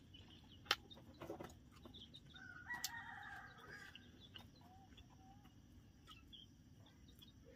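A rooster crows once, faintly, a held call of about a second and a half starting a little over two seconds in. A few short sharp clicks and taps come before it.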